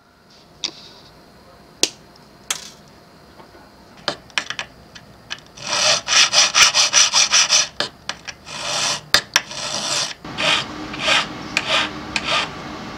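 Flat hand file scraping back and forth on a small platinum jewelry part held against a wooden bench pin. A fast run of strokes begins about six seconds in and is followed by slower, separate strokes. A few sharp clicks come before the filing starts.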